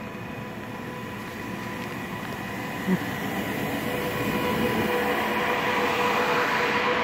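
NSB El 18 electric locomotive and its passenger coaches running past along a station platform, the rail noise growing louder as the train comes alongside, with a steady whine over it. A brief thump about three seconds in.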